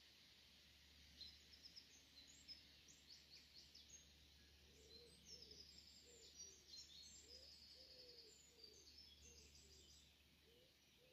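Faint birdsong: many quick high chirps and trills from small birds, joined about halfway through by a lower, repeated call, over a faint steady background hum.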